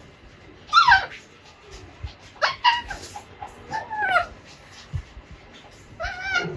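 Baby Alexandrine parakeet giving about five short, squeaky calls, several sliding down in pitch. This is the indistinct babble of a young parrot starting to learn to talk.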